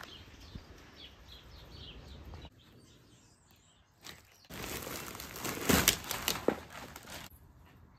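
Small birds chirping in short falling calls for the first couple of seconds. Then a thin plastic shopping bag rustles and crinkles as things are taken out of it, loudest about six seconds in.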